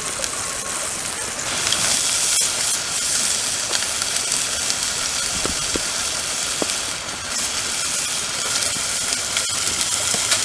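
Steak sizzling on a camp stove, a steady hiss that grows louder about a second and a half in, with light rain falling on the tent.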